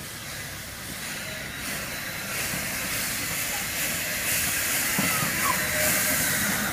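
Steam tank locomotive moving slowly, steam hissing from its open cylinder drain cocks, the hiss growing louder as the engine draws closer.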